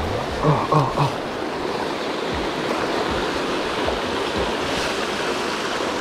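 Steady rushing of a fast mountain river's whitewater rapids over rocks. About half a second in, a person makes a few short vocal sounds.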